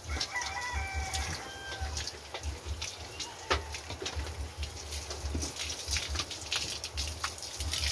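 A rooster crows once in the background, about half a second in, for roughly a second and a half. Around it, water from a garden hose splashes onto the wet floor of a pig pen, with irregular sharp clicks and spatters throughout.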